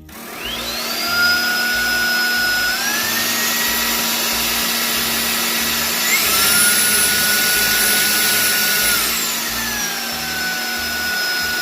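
Roidmi X20 cordless stick vacuum's motor starting with a rising whine over a rush of air, then stepping up in pitch through its speed settings about three seconds in and again about six seconds in, before dropping back down about nine seconds in. It runs quite loud.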